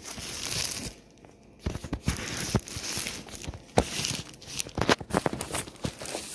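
Thin plastic packing sleeve crinkling and rustling as a laptop is pulled out of it by hand, with scattered sharp crackles and a short lull about a second in.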